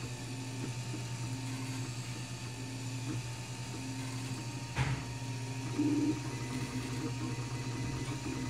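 Wanhao Duplicator 4 dual-extruder 3D printer printing: a steady fan hum, with the stepper motors whining in short, repeated pitched stretches as the print head moves back and forth. A single click about five seconds in, followed by a louder buzz of the motors a second later.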